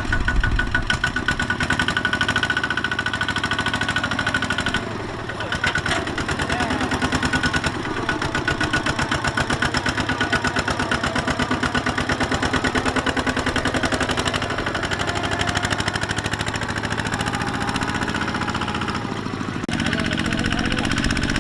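Kubota two-wheel tractor's single-cylinder diesel engine running with a fast, steady chugging. Its note shifts briefly about five seconds in and again near the end.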